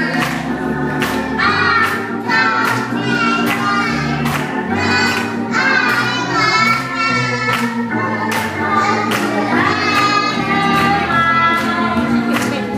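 Sunday school choir singing a gospel song with instrumental accompaniment and a steady beat about twice a second.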